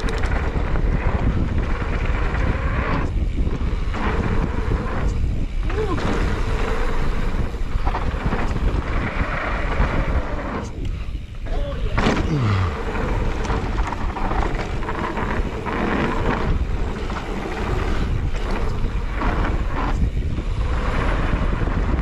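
Wind buffeting the microphone of a camera on a mountain bike while it rides fast down a packed-dirt trail, with the rushing and rolling noise of the ride. About twelve seconds in, a short falling tone can be heard.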